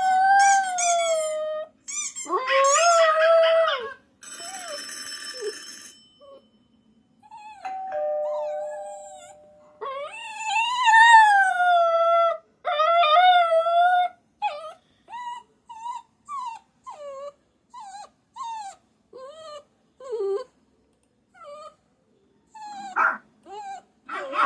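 A puppy howling in long, wavering, sliding calls, then breaking into a run of short, separate whining cries. A brief noisy hiss cuts in about four seconds in.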